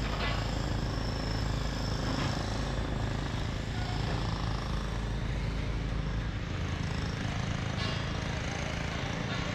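Steady outdoor din of a building site with a low rumble, broken a few times by short sharp knocks.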